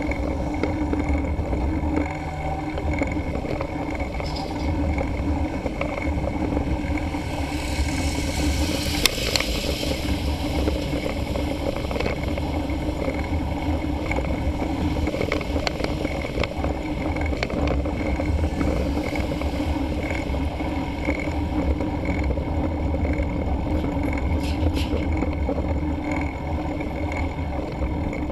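Wind buffeting the microphone of a camera mounted on a moving mountain bike, over a steady low rumble of riding on a paved road, with scattered clicks. A louder rushing hiss swells and fades about a third of the way in.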